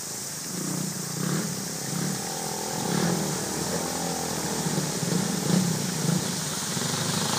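Dirt motorcycle engine running under throttle as the bike rides up through a shallow stream, growing louder as it comes closer, over the steady rush of flowing water. Water splashes off the wheels as the bike ploughs through the deeper water.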